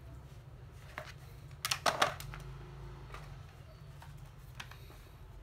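Handling clatter as a plastic battery charger and its cord are picked up off a cardboard floor: a click about a second in, then a quick cluster of sharp knocks about two seconds in, over a low steady hum.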